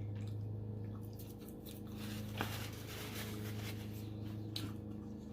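A person chewing breaded fried food close to the microphone, with soft wet clicks and crunches, over a low steady hum.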